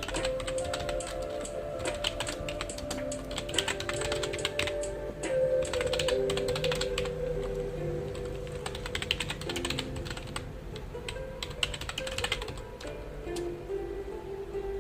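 Computer keyboard typing: rapid, irregular runs of keystrokes that thin out near the end, over soft background music.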